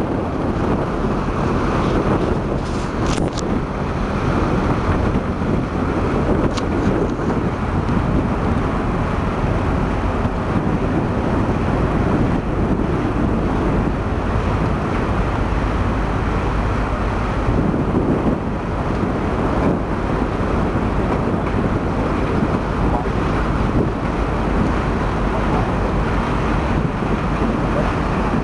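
Steady wind buffeting the microphone aboard a moving CityCat catamaran ferry, over the low drone of its engines and rushing water.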